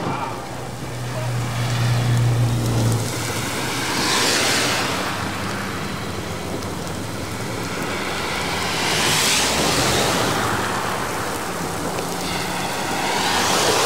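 Steady heavy rain, with vehicles swishing past on the wet road three times, each one swelling and fading. A low hum is heard during the first three seconds.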